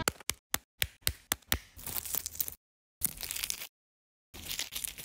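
A small metal spoon tapping an eggshell, a quick run of about ten sharp taps in the first second and a half, then three short stretches of eggshell crackling as the shell is cracked and picked apart, with clean gaps of silence between them.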